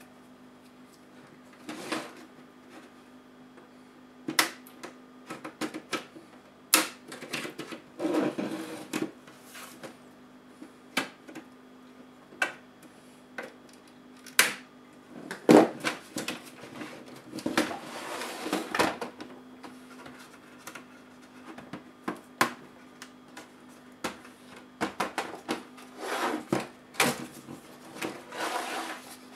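Plastic snap clips of a Dell XPS L501X laptop's palmrest cover popping loose as it is pried from the base with a small knife blade: scattered sharp clicks and snaps, with a few stretches of plastic scraping and rattling as the cover is worked free and lifted off.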